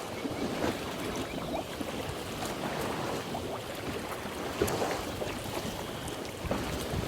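Wind buffeting the microphone over choppy water, with water lapping; the rumble of the wind swells near the end.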